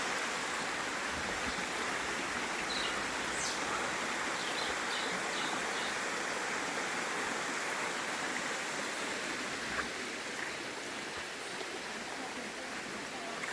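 Steady rushing of a waterfall, an even wash of falling water, easing slightly near the end. A few faint short high chirps sound about three to five seconds in.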